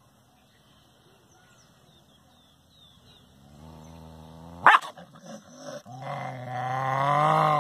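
A dog growling low, then one sharp bark about halfway through, then a longer, louder growl that swells toward the end.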